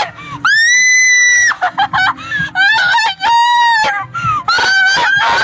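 Young people screaming and yelling in excited celebration: a long high-pitched scream about half a second in, followed by more shrieks and yells that overlap.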